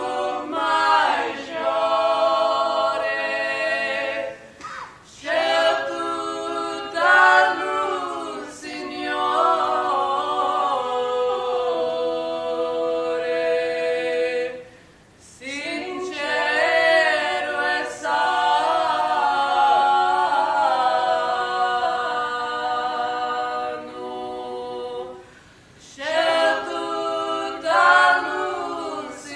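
A mixed-voice a cappella group singing a Corsican polyphonic song in long held phrases, with short breaks for breath about 5, 15 and 26 seconds in.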